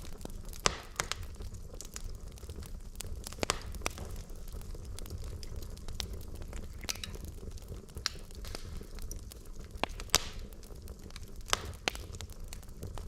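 Wood fire burning in a fireplace: logs crackling and popping irregularly over a steady low rumble and hiss, with a few louder sharp pops.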